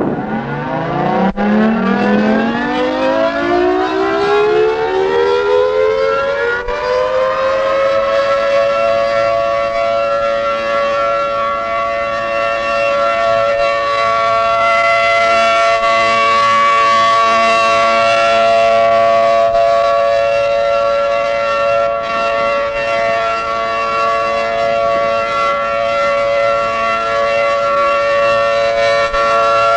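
Federal Signal 500AT civil defense siren winding up from a start, its pitch rising over about eight seconds, then holding a steady wail as a tornado warning drill signal. Heard through an old cassette recording.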